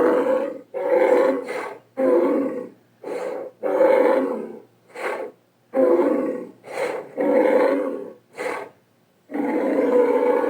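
Cartoon bull's vocal sound effects: a run of about a dozen short grunts and bellowing roars, each under a second to about a second long, with brief silent gaps between them.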